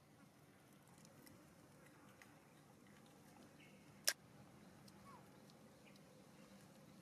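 Near silence with a faint outdoor background, broken about four seconds in by one short, sharp click, with a few much fainter ticks around it.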